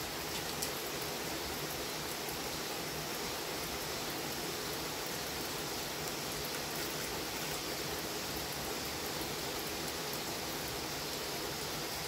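Steady rain falling, an even hiss that holds level throughout, with a couple of faint ticks in the first second.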